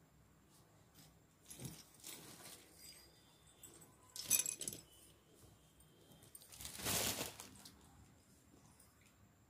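Three short bursts of rustling handling noise a couple of seconds apart, the middle one with a light clink.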